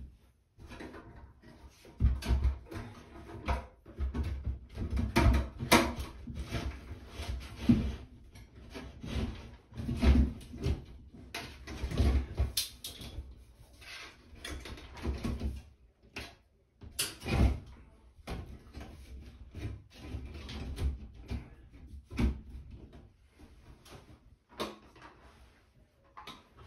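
Sheet-metal bathroom exhaust fan housing being pushed and shifted into a ceiling opening by hand: irregular knocks, bumps and rattles of metal against drywall.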